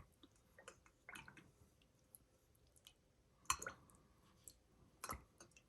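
Faint handling noises of fountain pen parts being rinsed in a small bowl of water: scattered soft clicks and small wet squishes, with two louder knocks about three and a half and five seconds in.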